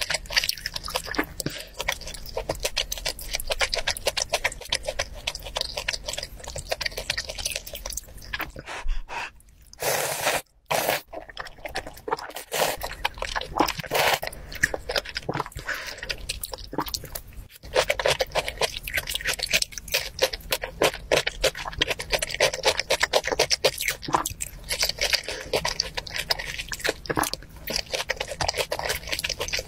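Close-miked eating sounds of a person eating noodle soup: slurping noodles and broth from a spoon and chewing, a dense run of wet smacks and clicks, broken briefly about ten seconds in.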